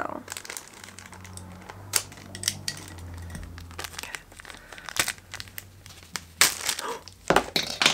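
Small blind-box packaging crinkling and crackling as it is opened by hand, in irregular sharp crackles that grow loudest in the last second or so.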